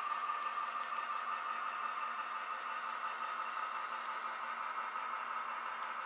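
Model freight train rolling along the layout's track: a steady whirring hum with a few faint light clicks from the wheels, easing slightly as the caboose passes.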